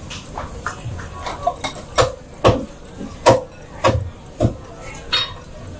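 Dishes and utensils clinking and knocking at a food stall: a run of sharp, irregular clacks, some ringing briefly, over a steady background hum.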